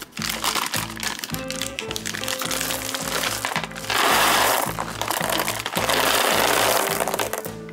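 Peanut M&M's poured from their plastic bag into a cardboard box, a dense loud rattle of candies from about four seconds in, lasting about three seconds with a brief break. Before it, the plastic bag crinkles as it is pulled open. Rhythmic background music plays throughout.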